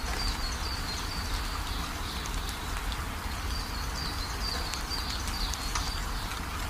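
Nature ambience: steady rain-like hiss over a deep rumble, with short high chirps, as of birds, coming in runs through it.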